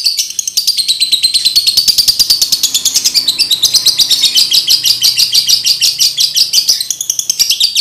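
Male lovebird in breeding condition singing: a long, unbroken rapid chatter of shrill chirps, about ten a second.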